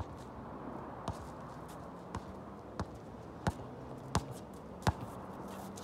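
A basketball dribbled on a hard outdoor court: a string of sharp bounces, roughly one every two-thirds of a second, the loudest ones about three and a half to five seconds in.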